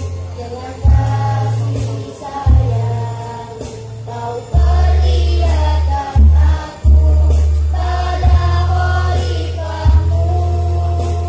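A mixed choir of students sings a march anthem in Indonesian over an amplified accompaniment of deep, held bass notes that change every second or two.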